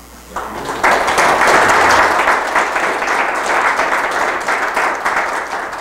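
A small audience applauding. The clapping builds over the first second, then slowly thins out toward the end.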